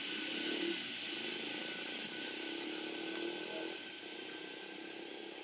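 A motor vehicle engine running, its low pitch wavering and then fading about four seconds in, over a steady high hiss.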